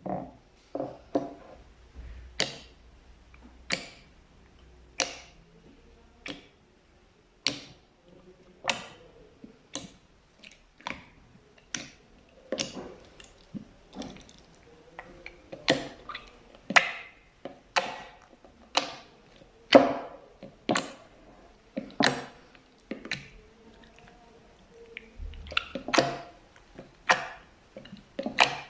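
Slime being worked by hand, giving a run of sharp pops and clicks about once a second, some louder than others.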